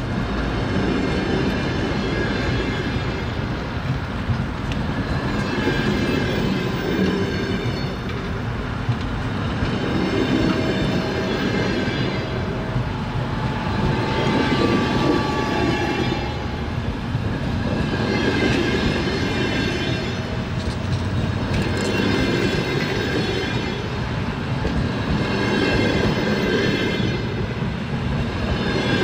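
Railway carriage wheels clattering continuously over the rails, with a level that swells and fades about every four seconds. A faint thin squeal comes in briefly around the middle.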